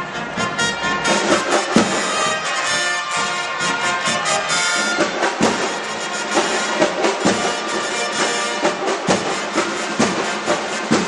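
Trumpets and drums playing a fanfare together, with frequent drum strokes under the brass.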